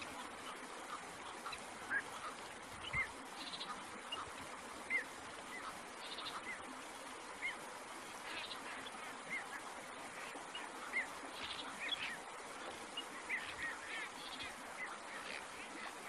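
Black-crowned night heron calls: short harsh calls every couple of seconds, with brief high chirps scattered between them over a steady hiss.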